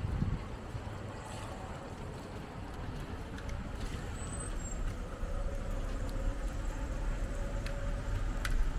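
City street traffic noise: a motor vehicle's engine running with a low steady rumble that grows a little louder in the second half, and a sharp click near the end.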